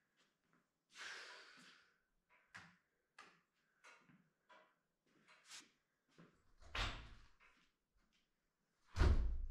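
Wooden framing lumber knocking and clattering in a series of short knocks, then two heavy thuds, about seven and nine seconds in, the second the loudest.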